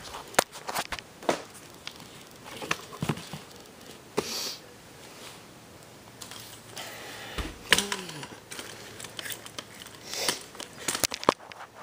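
Handling noise from a hand-held camera being carried and moved about: scattered clicks, knocks and rustles, with one short falling squeak about eight seconds in.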